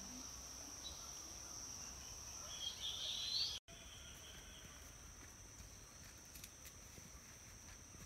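Steady high-pitched drone of insects, with a short rising bird call about three seconds in. The sound cuts out for an instant just after, then the insect drone carries on.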